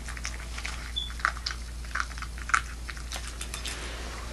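Boston Terrier puppy eating from a metal bowl: irregular chewing and biting clicks, several a second.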